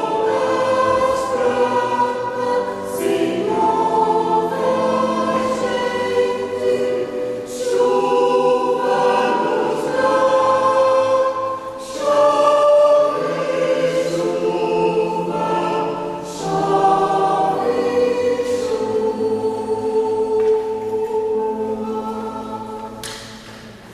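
Mixed choir singing in parts with piano accompaniment, holding long chords that change every second or two, the sound dying away near the end.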